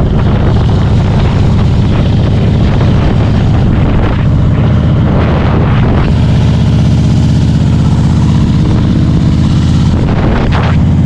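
An engine running steadily with a fast, even low pulse, with brief noisier surges about four to six seconds in and again near the end.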